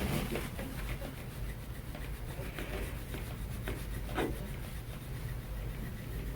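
Stainless steel Graston instrument scraping over skin and muscle in repeated short rubbing strokes, one stroke stronger about four seconds in.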